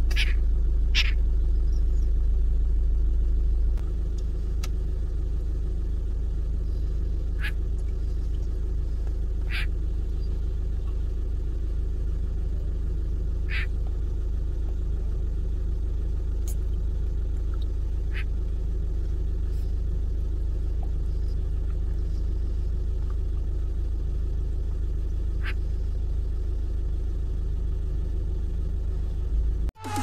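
Steady low rumble of an idling vehicle engine. Short, sharp bird calls sound about eight times, spread every few seconds.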